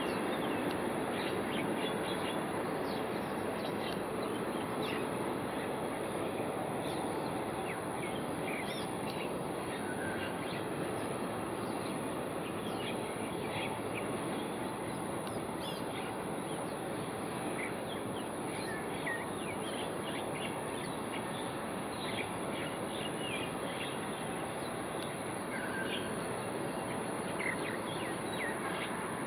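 Steady low background rumble with many short, high bird chirps scattered through it.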